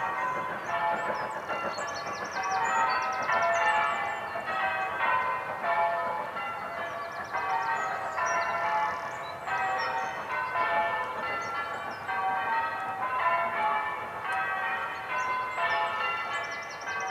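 Church bells ringing changes: a steady, even sequence of overlapping bell strokes at several pitches.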